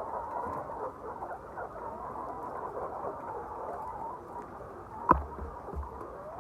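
A flock of laying hens in a poultry house, many birds calling over one another in a steady squeaky chatter, with one sharp knock about five seconds in.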